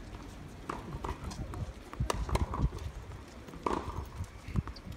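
Tennis balls struck by rackets and bouncing on a hard court: a run of sharp, irregular pops, some coming in quick succession.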